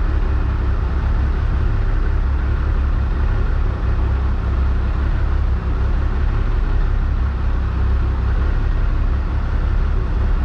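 Triumph Tiger Explorer 1200's three-cylinder engine idling steadily. It has a muffled knock ("toque-toque") that the mechanic traces to the alternator, suspecting a worn alternator bearing.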